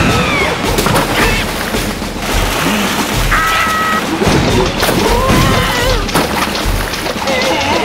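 Animated-cartoon soundtrack: music with a steady low beat under water splashing, crashes and thuds as two toy boats clash, along with the characters' gliding wordless cries.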